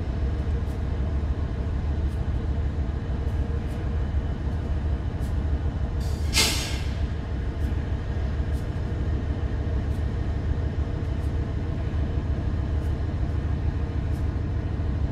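Diesel locomotive engines idling with a steady low rumble. About six seconds in comes one short, sharp hiss of released air.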